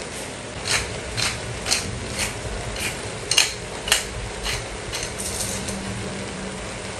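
Pepper grinder being turned over a wok, a run of ratcheting clicks about two a second that die away about five seconds in, over the low sizzle of vegetables stir-frying.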